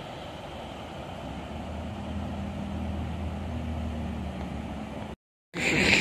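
Steady rushing of water pouring over a low dam, with a vehicle engine's low, steady hum joining in about a second and a half in. Both cut off suddenly near the end.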